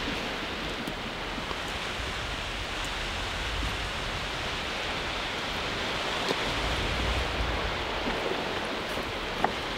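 Steady rush of surf on the rocks and wind, with low gusts buffeting the microphone now and then. A few faint clicks of stones shifting underfoot, one about six seconds in and one near the end.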